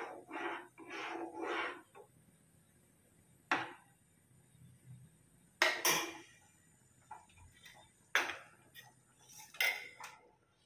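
Metal spoon stirring thick soup in a metal kadai, scraping against the pan for the first couple of seconds, then about four separate sharp knocks of metal on metal spread over the rest.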